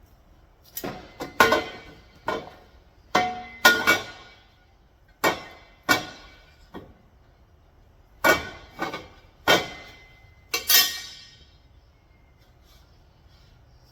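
Steel bar stock clanking and ringing as it is handled or knocked: about a dozen sharp knocks at uneven intervals, some in quick pairs, dying away about two seconds before the end.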